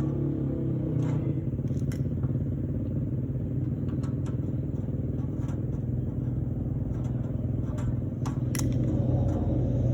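A motor vehicle engine idling steadily, with a few short light clicks and taps scattered through it.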